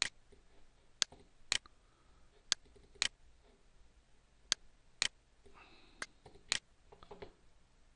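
Computer mouse button clicking while a picture is dragged to adjust it: a single click, then four pairs of sharp clicks about half a second apart, press and release.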